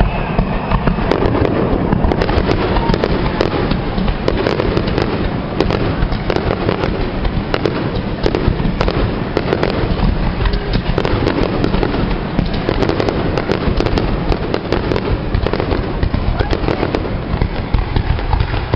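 Fireworks display: shells bursting in a dense barrage, many sharp bangs and crackles overlapping without a break.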